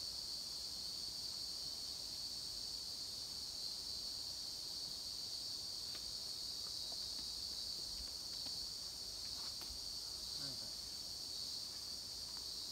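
A steady, high-pitched chorus of insects, with a few faint taps in the second half.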